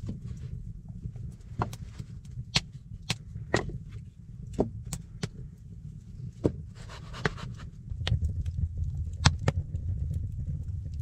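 Sawn wooden log rounds knocking against each other as they are set by hand into place: a string of irregular, sharp wooden clunks over a low rumble that grows louder near the end.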